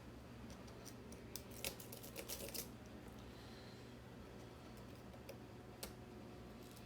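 Faint metallic clicks and scrapes of lock picks working the pins of a Schlage mortise cylinder, with a quick run of clicks about a second and a half in and a single click near the end.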